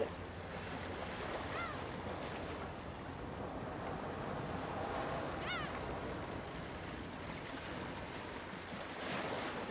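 Sea waves washing onto a sandy beach, a steady surf wash. A couple of short, high-pitched bird calls come through it about a second and a half in and again around five and a half seconds.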